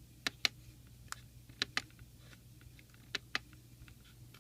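Small tactile push-buttons on an Arduino LCD keypad shield being pressed and released, clicking mostly in quick pairs about three times, over a steady low hum.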